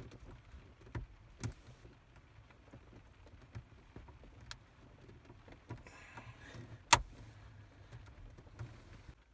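Plastic dashboard trim panel being pushed and worked into its opening: scattered small clicks and knocks, a brief rustle, then one sharp loud click about seven seconds in.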